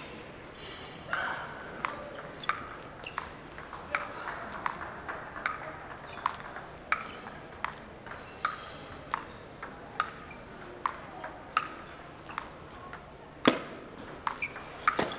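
Table tennis ball being hit back and forth with sandpaper-faced paddles, a steady series of sharp clicks off bat and table about every half second to second in a long rally. A harder hit comes near the end, followed by a few quick clicks.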